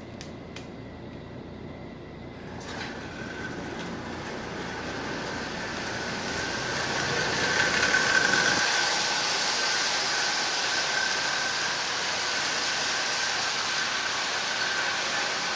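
Toy electric train starting up and running laps on the track: its motor whine and wheel noise grow louder over several seconds as the train nears, then hold steady at a constant speed. A few light clicks come just before it starts.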